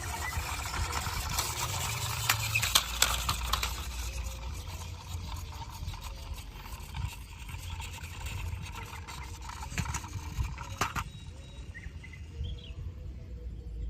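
Outdoor ambience: a steady low rumble with scattered sharp clicks and knocks, mostly in the first few seconds and again near the end, and faint bird chirps.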